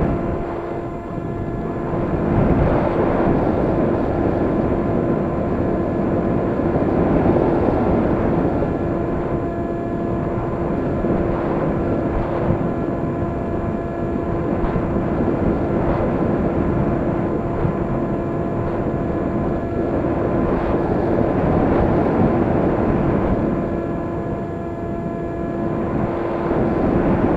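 RC model airplane's motor and propeller running at a constant pitch, with wind rushing over the on-board microphone and swelling and easing every few seconds as the plane manoeuvres.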